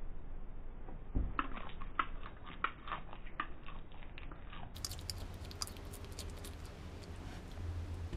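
Bearded dragon chewing a feeder insect: a run of sharp crunches, several a second, for about three seconds. After that a low steady hum with fainter clicks.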